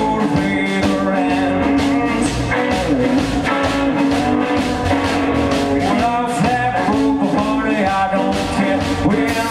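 Band playing an instrumental passage of a rockabilly song, with drums keeping a steady beat under pitched instruments.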